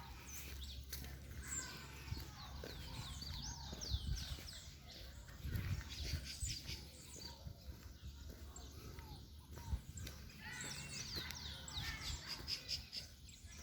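Several birds chirping and calling at once in forest, many short quick notes that mostly fall in pitch, busiest near the start and again near the end, over a steady low hum.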